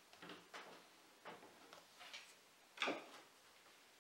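Light taps and knocks of a hinged melamine-faced board being handled on a wooden workbench, with one louder knock about three seconds in.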